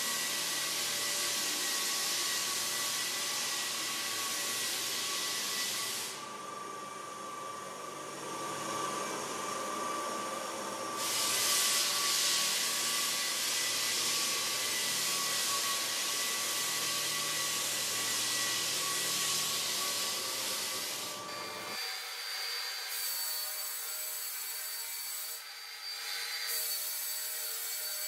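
Drum floor sander running, its motor whining steadily while the sanding drum grinds over herringbone parquet. The hiss drops for several seconds about a quarter of the way in, then returns. Near the end the low rumble falls away and a higher whine stands out.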